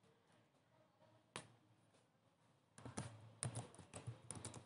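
Faint typing on a computer keyboard: a single click about a second in, then a quick, irregular run of keystrokes through the last two seconds.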